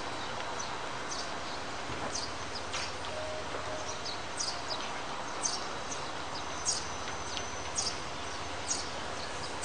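Outdoor ambience: a steady background hiss with a small bird chirping repeatedly, short high calls roughly once a second.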